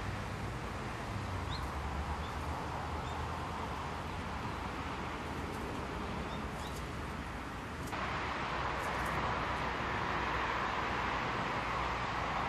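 Steady outdoor background noise with a low hum, and a few faint, short, high bird chirps in the first half. About eight seconds in, the noise steps up a little louder and brighter.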